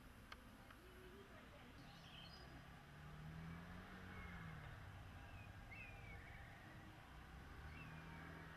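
Quiet outdoor background: a faint low hum that swells and fades around the middle, and a few short, high bird chirps in the second half.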